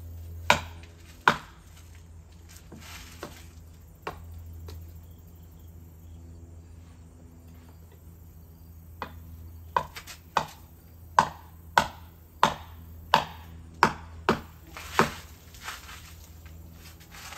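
Sharp blows struck by hand on a partly cut tree trunk that is being felled: two single strikes near the start, then a run of about ten, roughly one every two-thirds of a second.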